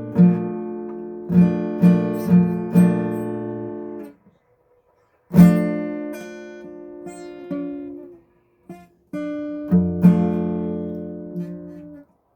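Acoustic guitar played without voice. It starts with a quick run of strummed chords, then two single chords are struck and left to ring out. Short silent gaps fall between them, and it stops just before the end.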